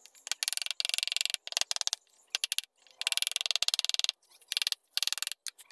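Hand carving chisel cutting into wood in a series of short strokes, each a rapid scratchy chatter, with brief pauses between strokes.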